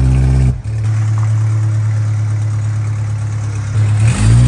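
Gen 1 Coyote 5.0 V8 in a Fox-body Mustang idling steadily, briefly breaking off about half a second in, then a quick throttle blip near the end that rises and falls in pitch.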